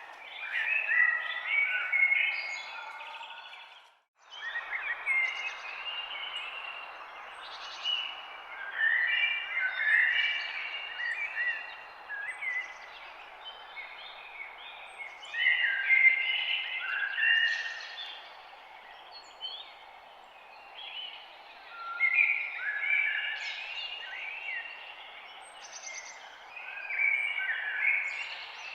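Songbirds singing in a forest chorus: short chirping phrases come every few seconds over a steady background hiss. The sound cuts out completely for a moment about four seconds in.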